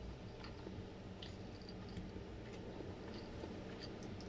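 Faint wet chewing and mouth clicks from eating soft food in sauce. A few light clicks come from a plastic fork poking in a plastic takeaway tub, over a steady low hum.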